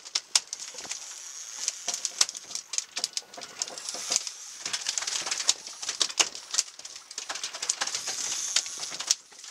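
Fishing reels cranked and clicking as anglers fight hooked albacore tuna: rapid, irregular ticks and ratcheting over a steady high hiss.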